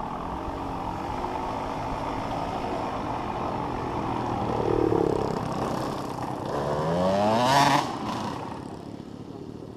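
Dirt bike engine running, then revving up with a rising pitch about seven seconds in, loudest near the top of the rev, before dropping back.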